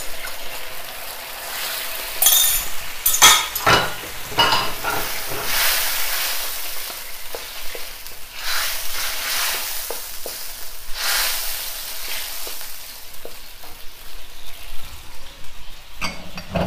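Stock-based sauce sizzling in a wok as it heats toward the boil, stirred with a wooden spatula. There are louder surges of sizzle and stirring a couple of seconds in and again about halfway, with small clicks of the spatula against the pan.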